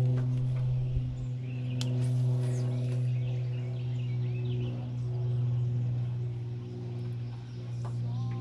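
Steady low hum of an electric bow-mount trolling motor running, with birds chirping over it and a sharp click about two seconds in.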